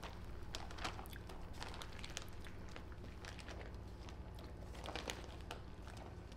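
Faint, scattered small clicks and light rustles: a small spoon and bowl being handled while a marinade is tasted.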